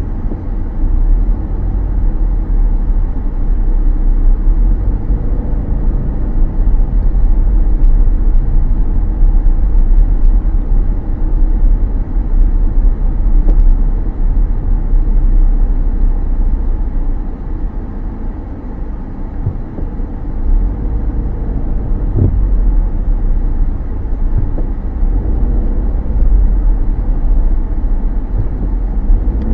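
Car driving along a city street: a steady low rumble of engine and road noise.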